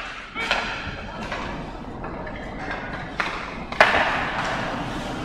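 Ice hockey play: skates scraping the ice and sticks clacking on the puck, with several sharp knocks. The loudest comes about four seconds in.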